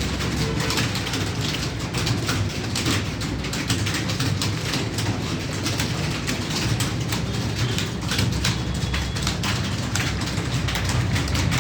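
Rapid, irregular clatter of computer keys being typed on, over a steady low hum.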